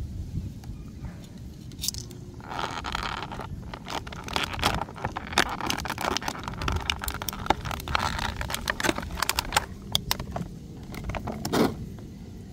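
Clear plastic blister tray of an action-figure package crinkling and crackling as it is handled and pulled apart, with many sharp clicks and snaps. It starts about two seconds in and stops shortly before the end, over a steady low rumble.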